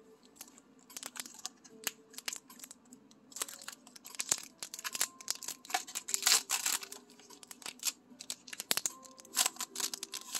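Foil wrapper of a Pokémon trading card booster pack crinkling in the hands and being torn open, a dense crackling that is loudest a little past the middle.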